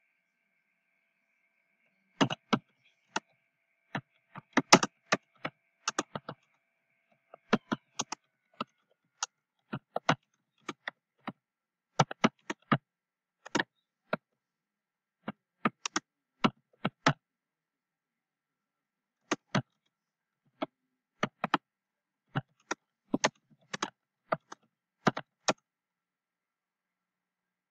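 Typing on a computer keyboard: irregular keystroke clicks in short runs, broken by pauses of a second or two.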